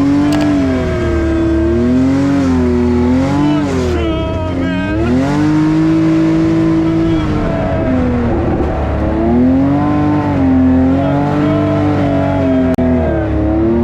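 ATV engine running under changing throttle, its note rising and falling every second or two, over a steadier low engine drone.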